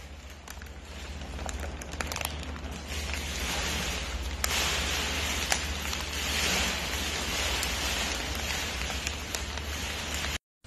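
A crinkly snack bag rustling and crackling as a raccoon handles it and rummages inside it for chips, with many sharp crinkles. A steady low hum runs underneath.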